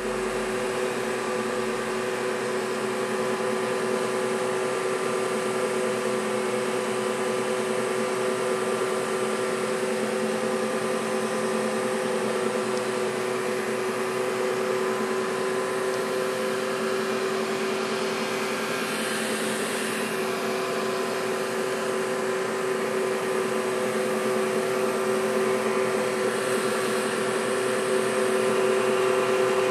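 Van de Graaff generator running, its drive motor and belt giving a steady hum with a hiss over it, a little louder near the end.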